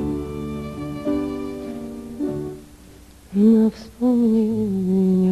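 Background music: a slow instrumental passage of held string notes fades out, then about three seconds in a voice begins singing or humming long, wavering held notes without words.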